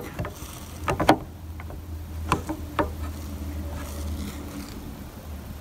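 Light clicks of a hard plastic dome light lens being handled: a quick cluster of clicks about a second in, then two single clicks about half a second apart near the middle, over a low steady hum.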